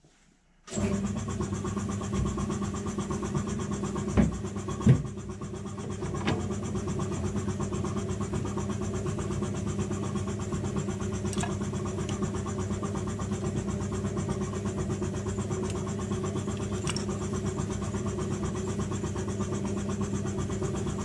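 Metal lathe running steadily with an even motor hum, starting up about a second in. A few sharp clicks sound over it a few seconds in.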